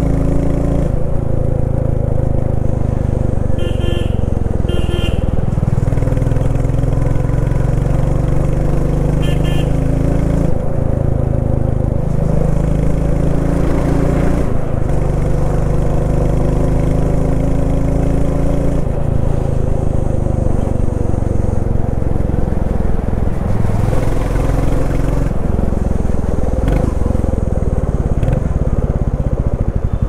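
Royal Enfield Classic 350's single-cylinder engine thumping through its exhaust on the move, its pitch climbing in each gear and dropping at each shift. Short horn beeps sound a few seconds in and again near ten seconds.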